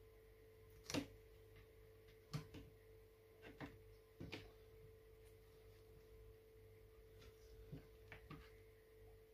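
Near silence with a steady hum, broken by a handful of faint clicks and taps from a small knife and gloved hands working on a plastic tray while skinning goose heads.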